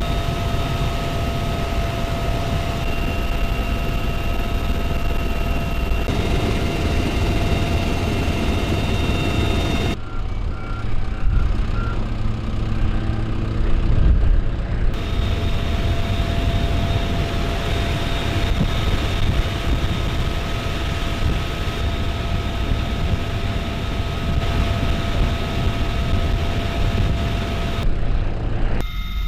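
Steady aircraft engine noise with a constant whine over a low rumble, changing abruptly about ten seconds in, again about fifteen seconds in and just before the end.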